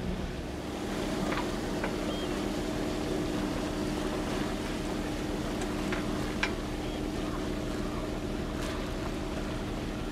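A sailboat's inboard engine running steadily under power, a constant hum, with water rushing along the hull. A few faint clicks sound partway through.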